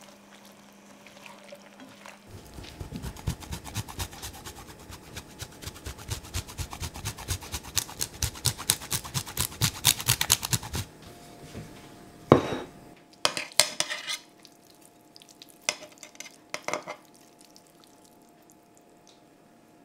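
Light stirring in a steel pan, then Parmesan grated over the pan on a handheld grater: rapid, even rasping strokes that grow louder and stop about 11 seconds in. A few separate clanks and scrapes of utensils against the pan follow.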